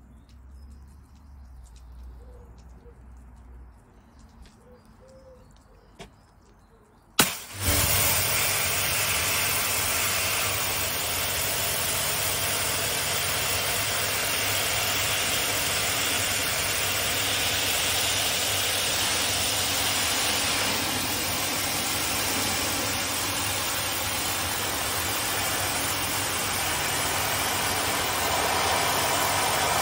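Pressure washer spraying wooden cladding: a sharp click about seven seconds in, then the loud steady hiss of the high-pressure water jet over the drone of the machine's motor, stopping right at the end. Before the click there is only a faint low hum.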